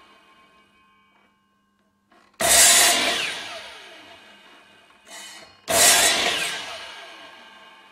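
Mitre saw cutting through a wooden strip twice, about three seconds apart. Each cut starts suddenly and loudly, then fades as the blade spins down with a falling whine.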